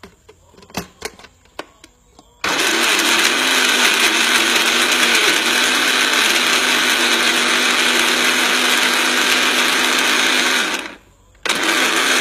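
Countertop blender puréeing fruit and aloe vera gel with a little water. After a few clicks as the jar and lid are handled, the motor starts about two seconds in and runs steadily for about eight seconds. It cuts off briefly, then starts again near the end.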